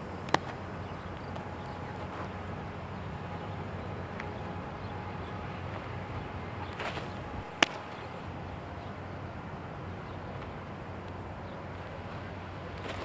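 Pitched baseballs smacking into a catcher's mitt: two sharp pops about seven seconds apart, the second the louder, each just after a faint whoosh of the throw.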